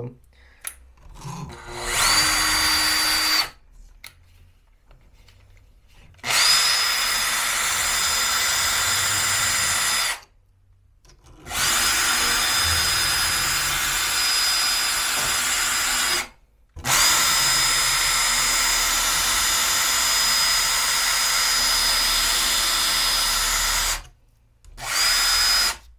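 Cordless drill spinning a worn 5 mm round chainsaw file against the cutter teeth of a chainsaw chain, sharpening them: a steady high motor whine over the scrape of the file. It runs in five bursts, from about a second to seven seconds long, with short stops between.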